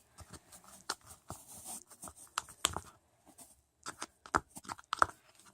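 Thick homemade slime of glue and laundry detergent being stirred in its container, making irregular small clicks and sticky squelching taps. The slime has stiffened and is hard to mix.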